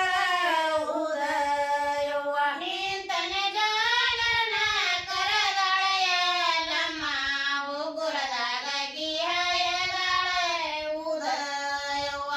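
A group of women singing a North Karnataka Kannada folk song together in unison, with long held notes that bend slowly up and down.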